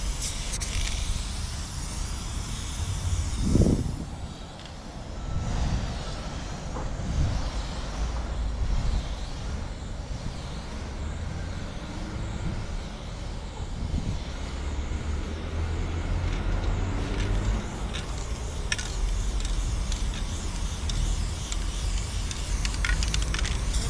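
Aerosol spray-paint can hissing as black paint is sprayed onto a wall, with a steady low rumble underneath.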